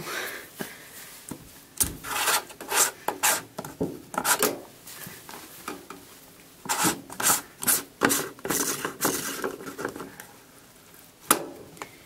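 A cloth being handled and rubbed against the plastic front of a washing machine at its drain-filter hatch, in irregular rustling and scraping strokes, with a sharp click near the end as a hand takes hold of the plastic filter cap.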